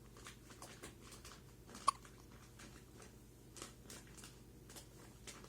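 Newborn baby hiccuping: short, sharp hics about two seconds apart, the loudest about two seconds in, with faint mouth clicks between.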